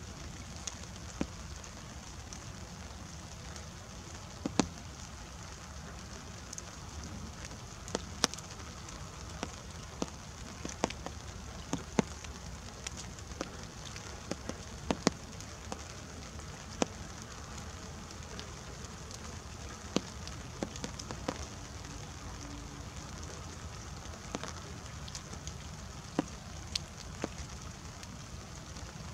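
Light rain: scattered sharp drips, falling irregularly from wet bare branches, over a steady soft hiss and a low rumble.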